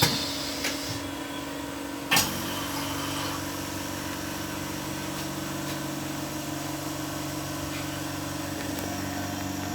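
Click about two seconds in, then the steady electric hum of a phone-screen laminating press running as it presses the new touch glass onto the display.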